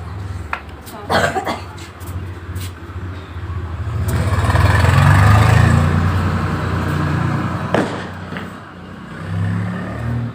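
A road vehicle passing, its engine sound swelling for a few seconds in the middle and then fading, over a steady low hum. There are a few short sharp sounds, two close together about a second in and one more near the end.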